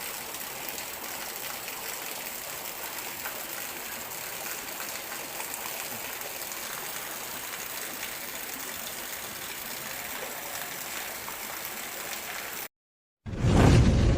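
River water running steadily, an even rushing hiss. It cuts off abruptly near the end, and after a brief silence a much louder sound with a heavy low end begins.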